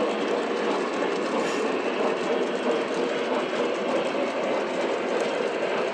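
Several three-rail model trains running slowly at the same time: a steady whir and rumble of their electric motors and wheels rolling on metal track.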